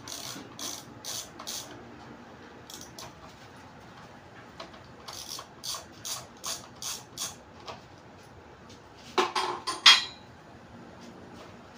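Small clicks and light clatter of hands and a tool working at a motorcycle's headlight assembly to take out the H4 bulb, with a louder run of several knocks about nine seconds in.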